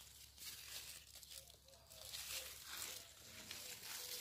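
Bean plant leaves rustling and crinkling as a hand pushes through the foliage, in several short, irregular spells.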